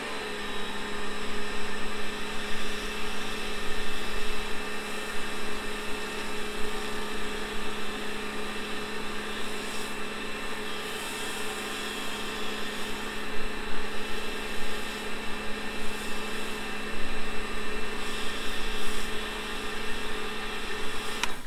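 Pressure washer running with a foam lance spraying foam: a steady motor-and-pump hum with a hiss of spray over it, cutting off abruptly near the end.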